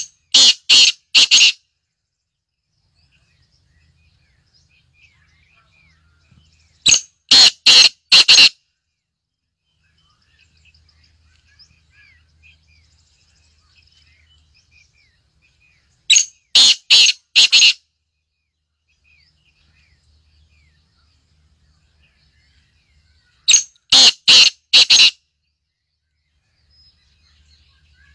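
Caged black francolin calling four times, some seven seconds apart: each call a loud run of four or five clipped notes lasting about a second and a half. Faint chirps of other birds come between the calls.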